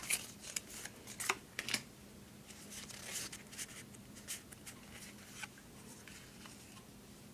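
Pokémon trading cards being handled and slid one by one from one hand to the other: faint, irregular flicks and rubs of card against card, busiest in the first couple of seconds.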